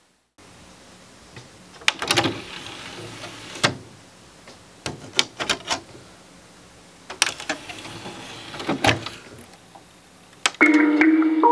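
An Aiwa CD boombox being handled: buttons clicking and its front CD tray opening, taking a disc and closing, heard as a string of sharp clicks and knocks. Near the end, music starts playing through the boombox's speakers.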